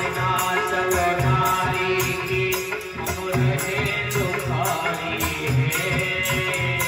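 Devotional Indian song: a man singing over a hand drum beating a steady rhythm, with held instrumental tones underneath.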